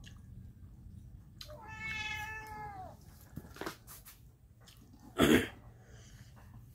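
A drawn-out animal call, about a second and a half long, that falls in pitch at its end, followed a few seconds later by a short, loud thump.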